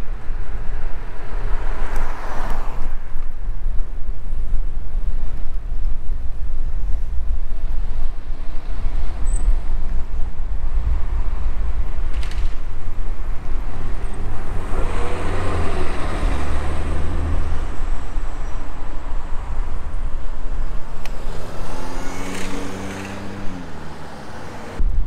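Cars passing on the street: two go by with engine tones that drop in pitch as they pass, one about midway and one near the end. Under them is a steady low rumble of wind on the microphone from riding a bicycle.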